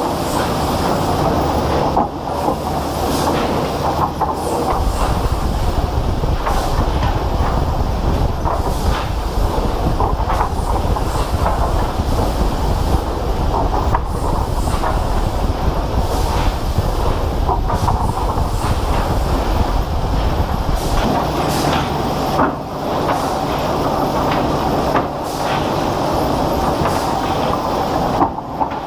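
Heavy wood-processing machinery running: a continuous rumble with rattling and knocking, its deep low rumble strongest for the middle stretch.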